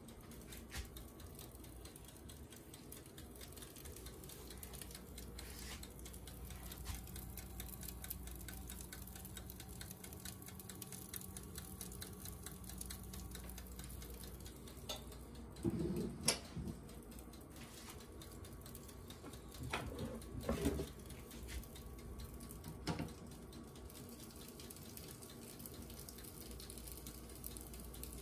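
Turkey meatballs browning in a pan with a faint, steady frying crackle. A few clatters against the pan come in the second half.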